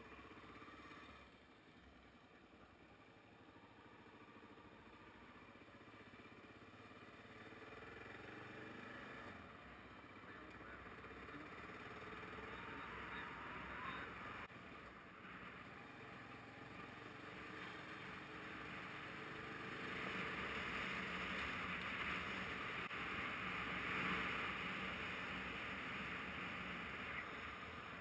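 Motorcycle engine running under way, mixed with wind and tyre noise on a gravel road. The noise grows steadily louder and is loudest in the last third.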